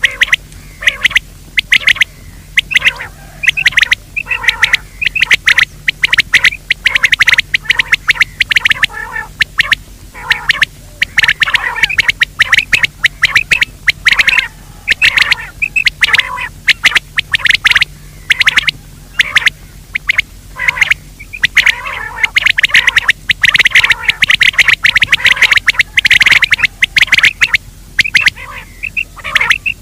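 Loud game-bird calls in rapid, unbroken succession: a call recording played to lure birds in by day.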